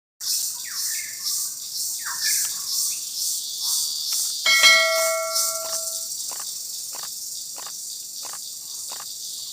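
Crickets chirping in a steady high-pitched pulsing chorus, the stock 'awkward silence' effect. About four and a half seconds in, a short bell-like ring sounds over it.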